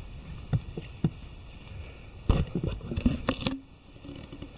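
Footsteps and scuffing of a hiker climbing a mountain trail: irregular thumps and rustles, with a loud cluster of steps about two to three and a half seconds in.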